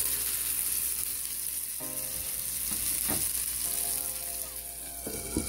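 Black sea bass fillet frying in clarified butter in a skillet, a steady sizzling hiss.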